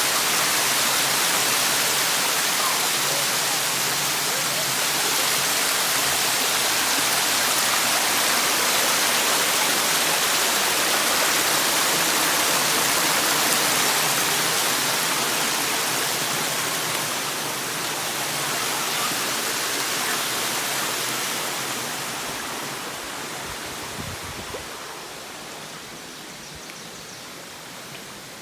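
Waterfall: a steady rush of falling water that fades noticeably over the last several seconds, with a brief low thump near the end.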